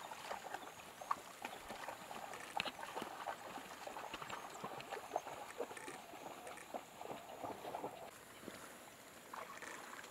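African wild dogs moving about in shallow river water: faint splashing and pattering of paws, with scattered short, high chirping calls.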